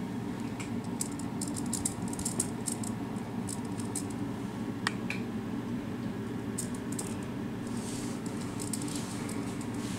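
Light scratching and rustling from a kitten's paws batting a feather wand toy across an upholstered bench, in two flurries, with a sharp click midway, over a steady low room hum.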